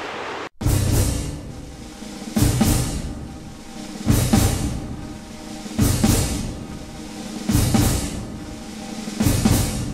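Background music with a slow, heavy drum beat: deep drum hits in pairs about every second and a half to two seconds. It cuts in sharply about half a second in, replacing a steady wind-and-surf hiss.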